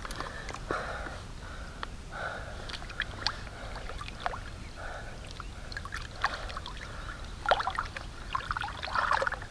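Shallow river water sloshing and splashing lightly around hands holding a caught asp in the water while it is revived for release, with a few sharper splashes about three quarters of the way through and near the end.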